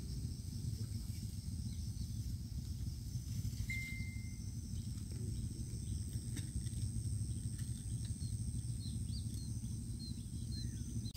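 Outdoor ambience: wind noise on the microphone, with a steady high-pitched insect drone and a few faint bird chirps; a short whistled note about four seconds in.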